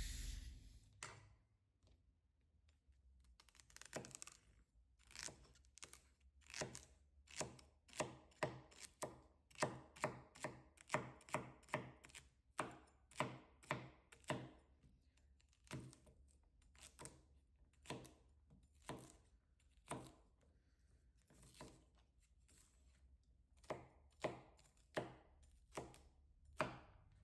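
Knife chopping on a thick bamboo cutting board: a long run of single sharp knocks, about two a second in the middle stretch and slowing to about one a second later on.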